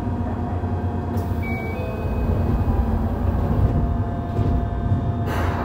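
Interior of a Yokohama Blue Line 3000A subway car standing in a station: a steady low hum of the car's onboard equipment and ventilation, with faint steady tones over it. A brief hiss comes near the end.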